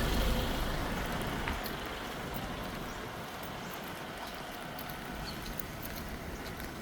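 Street ambience in light rain: a vehicle's low rumble fades away over the first two seconds, leaving a steady hiss with scattered faint taps.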